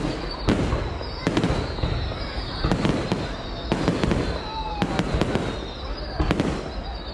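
Fireworks display: firework shells going off in irregular bangs, with high whistles sliding slowly down in pitch between them, over a murmur of voices.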